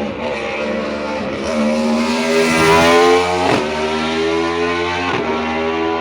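Rally car engine accelerating hard under load, loudest about three seconds in, with a gear change just after that and another near the end.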